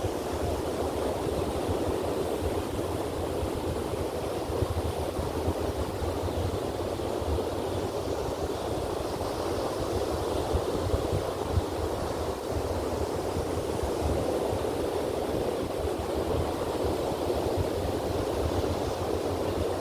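Ocean surf washing steadily onto a beach: an even, unbroken rush of breaking waves.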